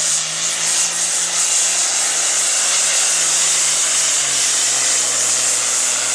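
John Deere Super Farm pulling tractor's turbocharged diesel engine running flat out as it hauls the weight-transfer sled down the track, a loud steady engine note under a strong high hiss. The engine note drops slightly about four seconds in as the load builds.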